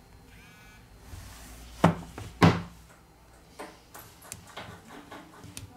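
Handling knocks from a smartphone on a desk: two loud knocks about two seconds in, then a run of small, light clicks as a SIM ejector pin is worked into the phone's SIM tray slot.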